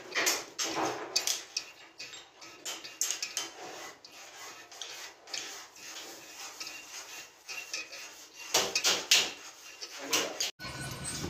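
Irregular metal clinks, taps and scrapes of hand tools and a steel rod being handled against a cast-iron sewing machine body during assembly.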